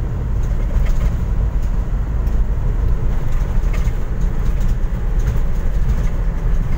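Road and engine noise inside a moving vehicle's cabin: a steady low rumble with a few faint clicks or rattles.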